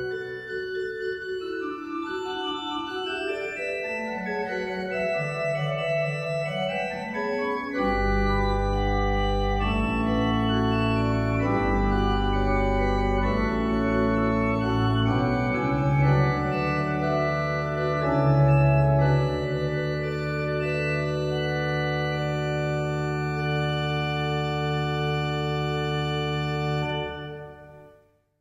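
Pipe organ playing with a gap registration: Gedackt 8' and Prinzipal 2' with the 4' pitch left out. About eight seconds in, a deep pedal bass (Subbass 16') enters, together with a second manual voice (Spitzflöte 8' with Quinte 1 1/3'). The final chord is released near the end and dies away.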